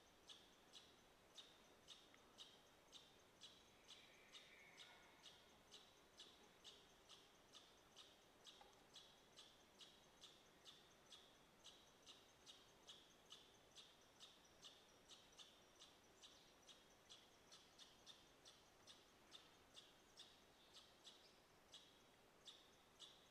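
Near silence with a faint high chirp repeated evenly about twice a second, and a brief faint falling whistle about four seconds in.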